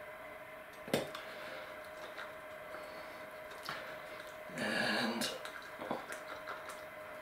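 A wooden stirring stick scraping and tapping in a small plastic cup of epoxy resin being thinned with ethanol. There is a sharp click about a second in and a brief rasping noise around five seconds, over a faint steady hum.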